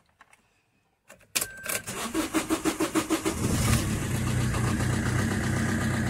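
Vauxhall Combo's common-rail diesel engine cranked over by the starter motor for about two seconds, then catching and settling into a steady idle. It starts now with the EGR blanked off, the EGR having been found to be the cause of the no-start.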